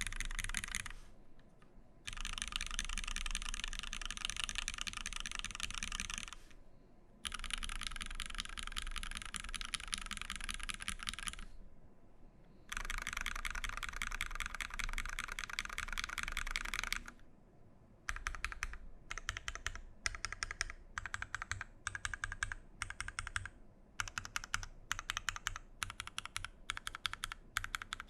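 Fast typing on a gasket-mounted mechanical keyboard with lubed Cherry MX Vintage Black linear switches, a brass plate and GMK keycaps. Long runs of continuous keystrokes break off in short pauses, and from about 18 s in the typing comes in shorter bursts with brief gaps between them.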